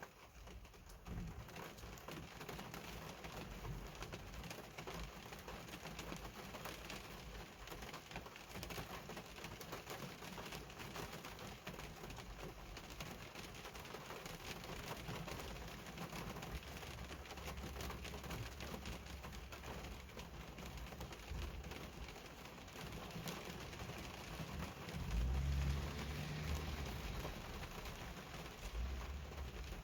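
Heavy rain falling: a dense, steady patter of drops, with a louder low rumble about 25 seconds in.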